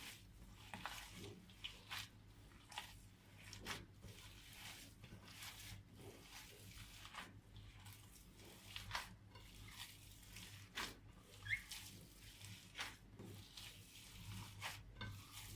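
Hands kneading a bowl of raw minced meat mixture: faint, irregular wet squishes and slaps.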